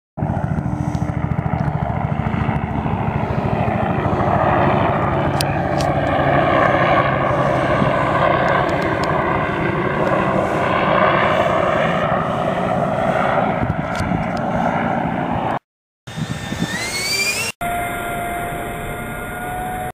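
Electric ducted fan of an Art-Tech JETIGER 64 mm RC jet running: a loud, steady rushing noise over a low hum for about fifteen seconds. After a sudden cut come a short rising whine and then a steady high whine.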